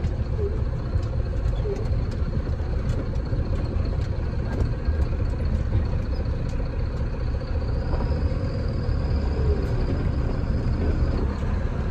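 Truck engine running at low, steady revs, heard from inside the cab as the truck creeps across a rough dirt lot to park.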